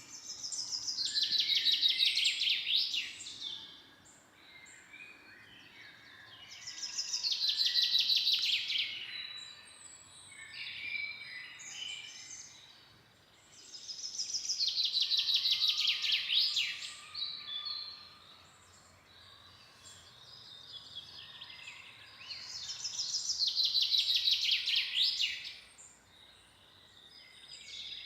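A forest songbird singing the same song four times, each a fast, high trill of about three seconds ending in a quick flourish, repeated every seven to eight seconds. Fainter chirps from other birds fill the gaps.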